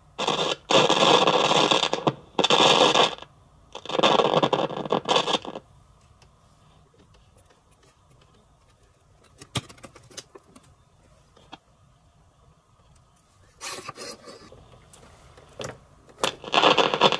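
Sanyo M2420 radio cassette recorder's speaker giving loud bursts of radio static that cut in and out as its power switch and knobs are worked. This is the sign of dirty, worn switches and controls. Then a few sharp clicks, and a short burst of static again later.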